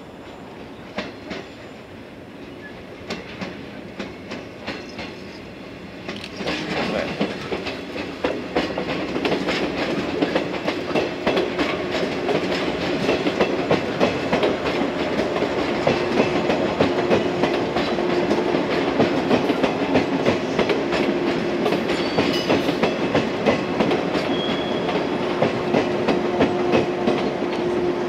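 JR West 115-series yellow electric train, two three-car sets coupled, running past with its wheels clacking in quick rows over rail joints and pointwork. It grows loud about six seconds in, and a steady hum from the train joins the clacking later on.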